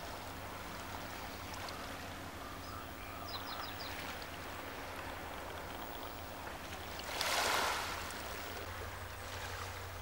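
Gentle water lapping at a pebble shoreline, a steady wash with a low hum beneath it. A few faint high chirps come about three and a half seconds in, and a louder rush swells and fades about seven seconds in.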